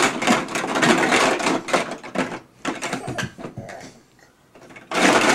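Dense rattling and clattering of objects being handled and knocked about, loud for about two seconds, thinning out to a brief lull, then loud again near the end.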